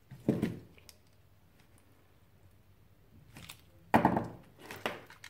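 Tools handled on a woven table mat: a few dull knocks and clicks as a utility knife is set down and a metal pick taken up, the sharpest about four seconds in.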